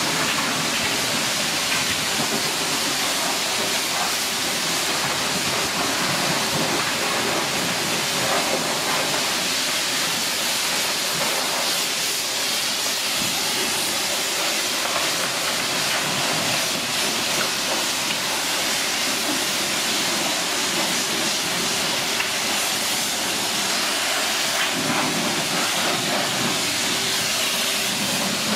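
High-pressure water jet from a self-service car wash spray wand, hitting a car's bodywork as a steady hiss of spray.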